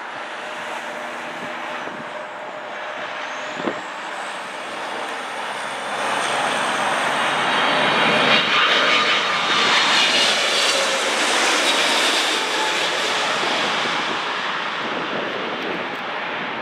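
Boeing 777-200 freighter's twin jet engines on final approach: a steady rushing jet noise with a high whine over it. It grows louder about six seconds in, is loudest as the aircraft passes close, then eases off near the end.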